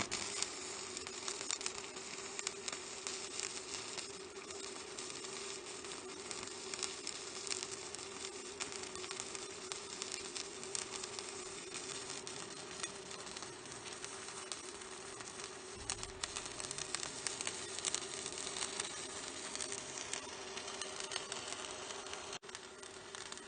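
Stick (MMA) arc welding with a 4 mm electrode on a Mächtz MWM-280 D inverter set to about 190 A: the arc gives a continuous sizzling crackle, with a steady hum underneath. The arc breaks off for a moment near the end.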